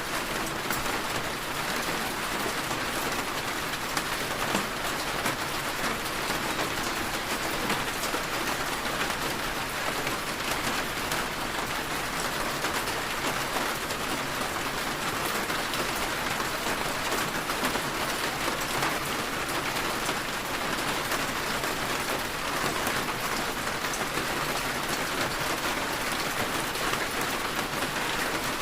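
Steady rain falling, with a dense patter of drops on a surface and no thunder.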